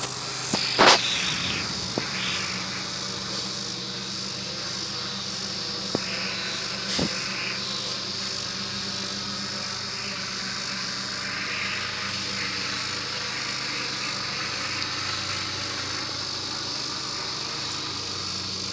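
Steady chorus of insects, such as crickets, over a low steady hum, with a few sharp knocks, the loudest about a second in.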